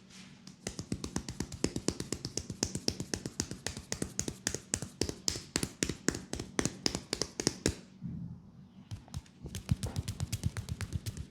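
Rapid percussive tapping strokes on a leg during an acupressure massage, about six sharp taps a second. A short pause comes about eight seconds in, then another fast run of taps.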